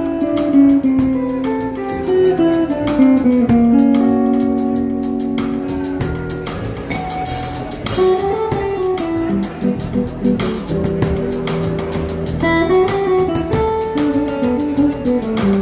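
Instrumental music from a guitar-led trio playing live: a guitar plays flowing single-note melody lines over drums and a low accompaniment.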